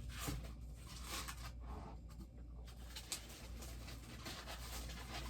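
Faint rustling and scraping of cardboard and plastic packaging being handled while a bobblehead is unboxed, with one sharper click about three seconds in.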